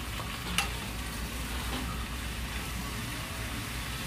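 Sliced Korean zucchini (aehobak) sizzling steadily in a frying pan over high heat while it is stirred with wooden spoons, with one short knock of a spoon against the pan about half a second in.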